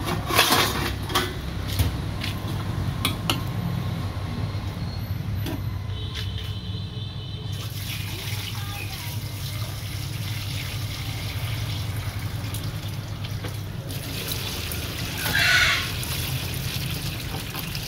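A few knocks of a steel pot being handled in a steel sink, then brewed coffee poured from the pot through a plastic colander into the sink: a steady splashing stream starting about eight seconds in. A steady low hum runs underneath.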